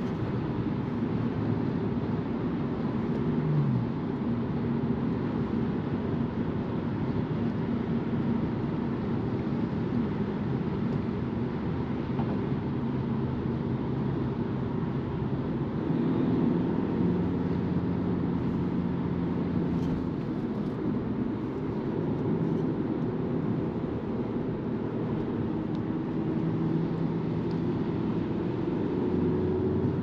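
Cabin noise of a BMW 220d xDrive Gran Coupe cruising at motorway speed: steady tyre and road rumble with the hum of its four-cylinder diesel, the hum shifting pitch a few times.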